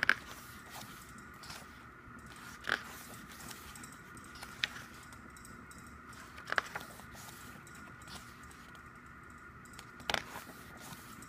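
Pages of a glossy album photobook being turned by hand: five short paper flips and rustles, a couple of seconds apart, over a faint steady high hum.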